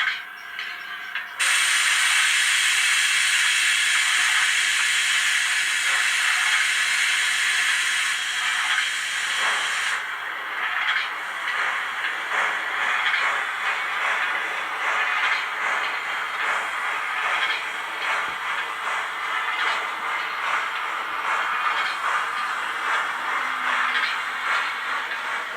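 Model steam locomotive's sound decoder playing a loud steam hiss that starts about a second and a half in and cuts off abruptly about ten seconds in. It is followed by slightly quieter rapid, pulsing steam chuffs.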